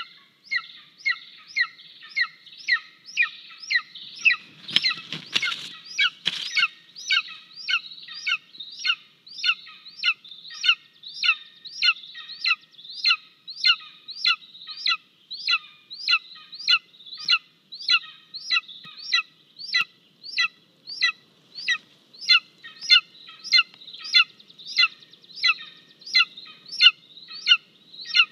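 Golden eaglet giving food-begging calls: a short, high, downward-slurred call repeated nearly twice a second without a break. About five seconds in, a burst of wing flapping and rustling as an adult golden eagle lands on the nest.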